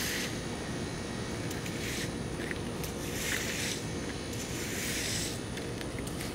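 Plastic-bristled push broom sweeping charred debris over asphalt, in several drawn-out scraping strokes about one every second or two.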